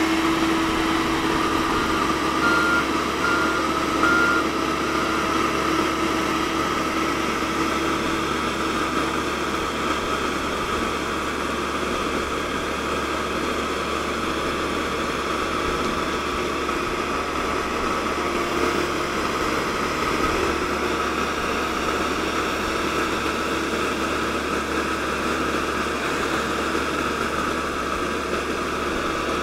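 Komatsu PC130-8 excavator's diesel engine running steadily at close range, with a constant whine over it and a few short high beeps a couple of seconds in.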